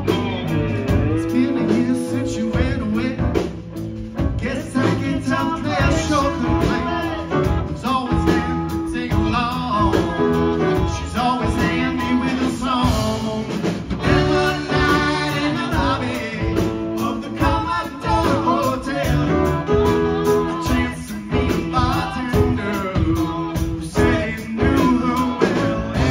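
Live rock band playing: electric guitars, electric bass, keyboard and drum kit on a steady beat, with a singing voice over the band.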